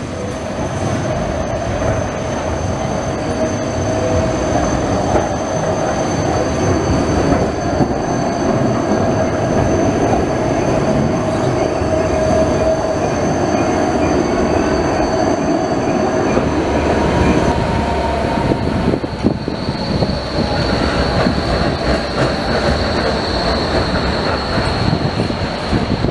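Berlin BVG trams passing close by: steady running noise of steel wheels on rails with high whining tones that die away about two-thirds of the way through, followed by plain street-traffic noise.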